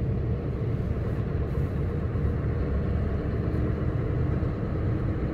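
Steady low rumble of a vehicle's engine and road noise heard from inside the cab while driving.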